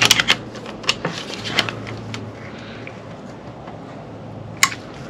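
Hand tools clicking and tapping against a motorcycle's four-piston brake caliper as its pistons are gripped and turned with piston pliers: a quick cluster of clicks at the start, a couple more over the next second and a half, then one sharper click near the end.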